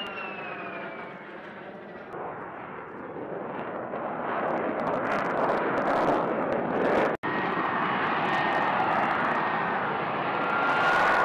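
F-35B Lightning II's jet engine. It starts with a falling whine as the jet passes, and a loud roar builds up. After a brief cut about seven seconds in, the roar goes on steadily with a high whine on top as the jet hovers in short-takeoff/vertical-landing mode with its lift-fan doors open.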